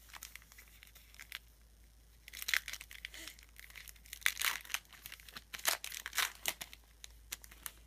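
Wrapper of a Topps Strata football card pack crinkling and tearing as it is opened. It starts with a few light clicks, and a rapid run of crackles follows from about two seconds in until near the end.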